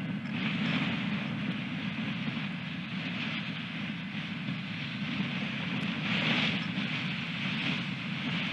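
Strong wind buffeting the nest camera's microphone: a steady low rushing with gusts of higher hiss swelling and fading, the strongest gust about six seconds in.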